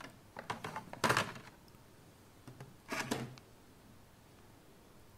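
Plastic clips of an HP ProBook 450 G2's bottom service panel snapping loose as a metal pry tool pops the panel off. A few sharp clicks and snaps: the loudest about a second in, another cluster around three seconds.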